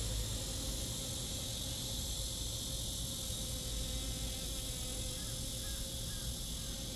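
A steady, high-pitched chorus of insects, unbroken throughout, over a low rumble.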